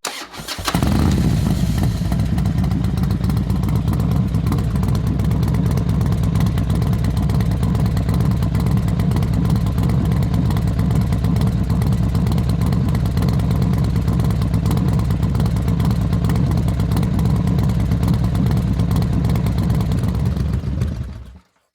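Custom Harley-Davidson motorcycle's V-twin engine starting after a brief crank and running steadily and loudly until it cuts off suddenly near the end.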